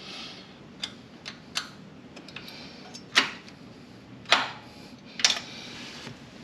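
Metallic clicks and clanks of hand tools and motorcycle shift linkage parts being handled during fitting. A few light ticks come in the first two seconds, then three louder clanks about a second apart.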